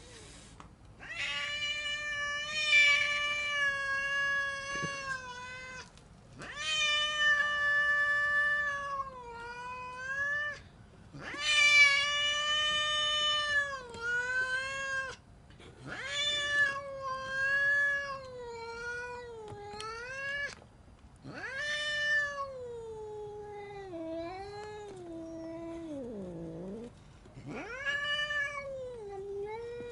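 An angry domestic cat yowling in a series of about nine long, drawn-out calls, each a few seconds long. Several sag in pitch at the end, and one late call sinks down into a low growl. This is the threatening yowl of a cornered, defensive cat warning off an intruder.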